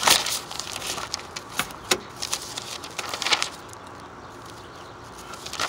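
Paper pages of a spiral-bound sketchbook being flipped and handled: a loud rustle at the start, then several shorter rustles and taps over the next few seconds before it settles.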